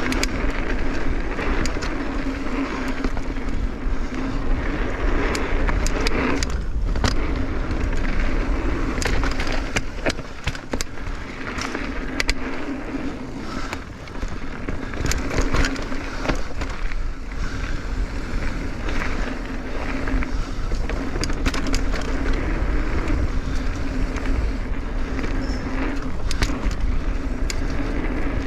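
Mountain bike rolling fast down a loose, dusty dirt trail: tyres running over loose dirt with frequent clicks and knocks as the bike rattles over bumps, and a steady low rumble of wind on the microphone.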